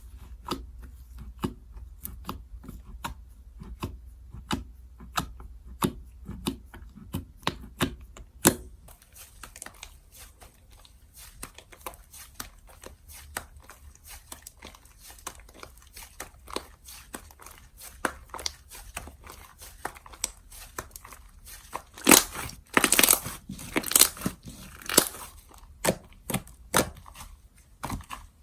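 Hands stretching, pressing and squishing slime, giving a steady string of sharp clicks and pops, with a louder, denser run of pops a little past three quarters of the way through.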